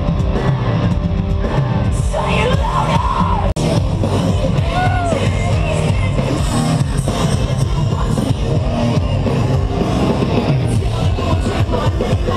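Post-hardcore band playing live and loud through a festival PA, with singing over the band and the crowd yelling along. The sound breaks off for an instant about three and a half seconds in.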